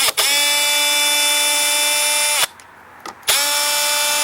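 Power drill/driver whining at a steady speed for about two and a half seconds, winding down, then starting up again about a second later and running on.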